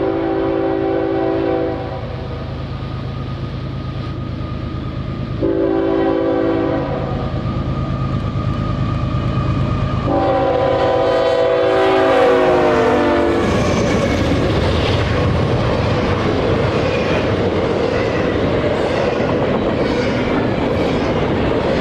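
Nathan K5HL five-chime air horn on a GE ES44AC diesel locomotive blowing for a grade crossing: a blast ending about two seconds in, a shorter one around six seconds, and a long one from about ten seconds whose chord drops in pitch as the locomotive passes. After that comes the steady rumble and clickety-clack of the locomotive and its train rolling by.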